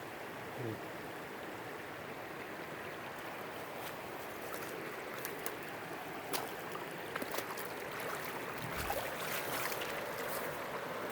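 Water from a beaver dam spilling over in small waterfalls, rushing steadily. In the second half, scattered sharp clicks and crunches, like steps or twigs underfoot, join in.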